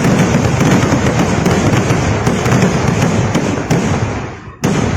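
Kerala temple-festival fireworks (vedikkettu) going off as a dense, continuous barrage of firecracker bangs. The barrage dies away about four seconds in, then a single sharp bang sets it going again near the end.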